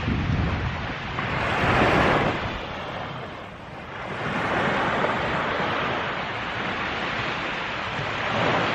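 Surf breaking on a steep sandy beach, the wash swelling and ebbing: one strong surge about two seconds in, a longer one in the middle and another near the end. Wind buffets the microphone, adding a low rumble.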